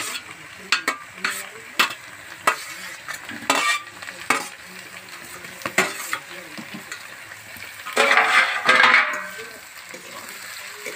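Metal spatula scraping and clinking against a steel plate as raw chicken pieces are pushed off into a kadhai of hot oil and onion-ginger-garlic masala, a string of sharp clinks. About eight seconds in comes a louder stretch of stirring and scraping with the chicken sizzling in the pan.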